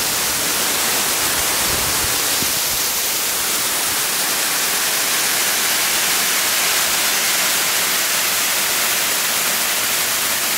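Water pouring over a stone dam spillway: a steady, unbroken rushing hiss of falling water.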